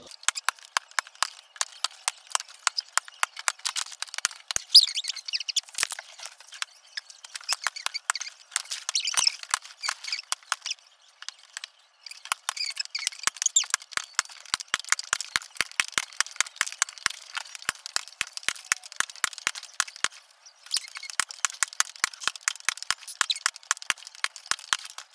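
A rapid run of sharp clicks, about three to four a second, with faint high squeaks among them. It stops briefly twice, about halfway through and again near the end.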